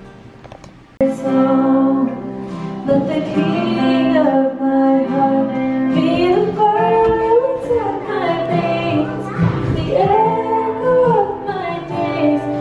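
Music with a woman singing long, gliding notes over sustained accompaniment, starting abruptly about a second in.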